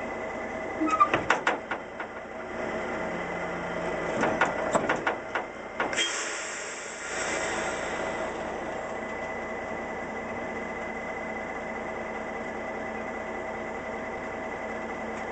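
Diesel engine of a Western Star dump truck idling steadily, with a run of sharp metallic clanks about a second in and again around four to six seconds in, and a brief hiss about six seconds in.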